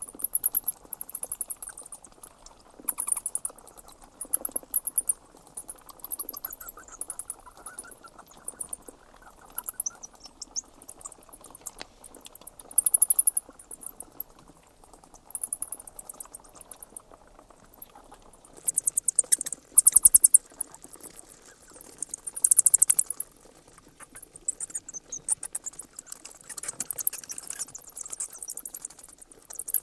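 Bats squeaking: rapid trains of high, shrill chirps and clicks in repeated bursts of a second or two, over a faint lower rustle.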